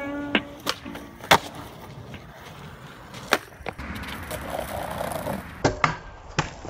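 Skateboard wheels rolling on pavement, broken by a string of sharp wooden clacks as the board's tail pops and the board slaps down; several clacks come close together near the end.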